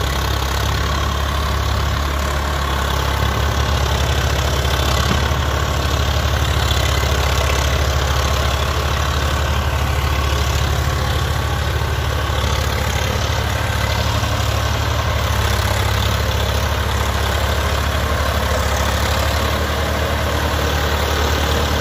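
Diesel tractor engine running at a steady low speed, a constant low drone with no change in pitch.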